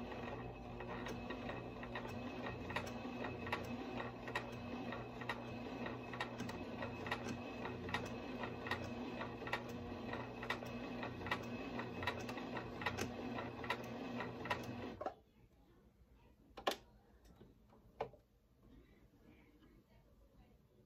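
Singer Tradition electric sewing machine running steadily at a straight stitch, its needle mechanism ticking regularly, as it sews a label onto an elastic band. It stops suddenly about fifteen seconds in, followed by two sharp clicks.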